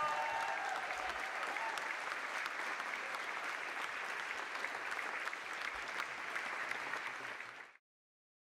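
Audience applauding steadily, a dense patter of many hands clapping, which fades out quickly near the end.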